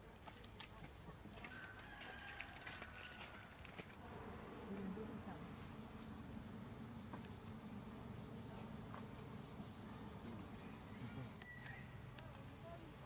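Steady high-pitched drone of insects, unbroken throughout, over faint outdoor background.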